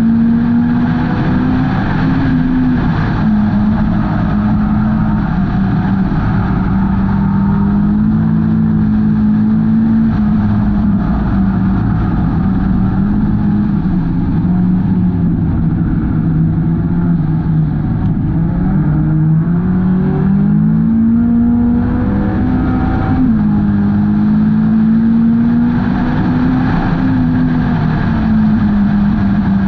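Hornet-class race car's engine pulling hard at race speed, its pitch holding, then sagging for a few seconds about halfway through and rising again as it comes back on the power, with steady road and tyre noise underneath.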